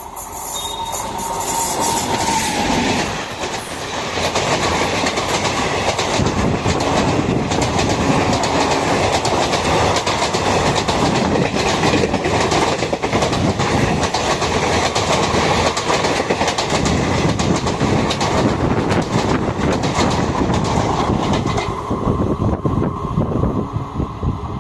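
A train passing close by at speed, its wheels clattering rhythmically over the rail joints. The clatter drops away about twenty-two seconds in.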